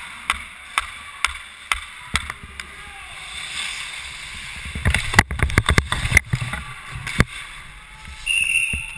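Ice hockey skates scraping and cutting across rink ice, heard from a player's helmet, with sharp clicks about every half second at first. About five to seven seconds in comes a burst of sharp knocks and clatter from sticks and boards as play closes in along the boards.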